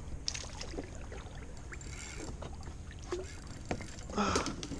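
Kayak on the water during a fish fight: low water and hull noise with scattered small clicks and knocks, and a brief louder rustle about four seconds in.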